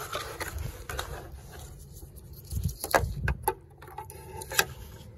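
Irregular light clicks and taps as a side mirror's wiring connector and wires are fed through a hole in the door's sheet-metal mirror mount, with handling noise underneath; the sharpest clicks come about three seconds in and again near the end.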